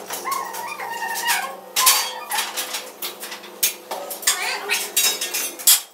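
Steel scaffolding and props clanking as they are handled: a run of sharp metal clangs, some ringing briefly.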